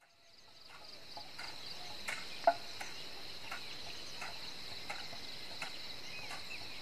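Steady high-pitched insect chorus, fading in at the start, with short ticks about every 0.7 seconds and one sharp click about two and a half seconds in.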